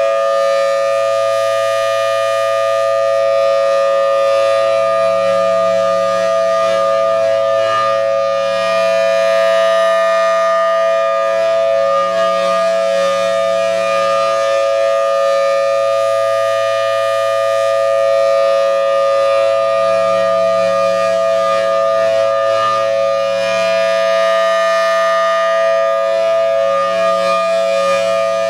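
Federal Signal Thunderbolt 1000T outdoor warning siren sounding its full alert: a loud, steady chord of two pitches held without a wail. It swells and fades gently every several seconds as the rotating head sweeps past.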